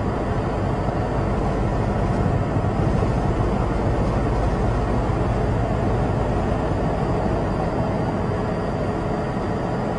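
Steady, unbroken rumble of vehicle noise, heaviest in the low range, with no single vehicle passing or other distinct event standing out.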